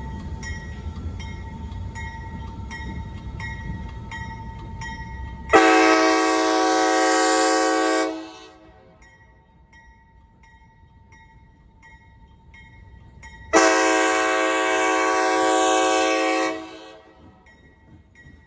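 A locomotive air horn sounds two long, loud blasts, each about three seconds and some eight seconds apart. Before the first blast there is low train rumble with regular ticks about twice a second.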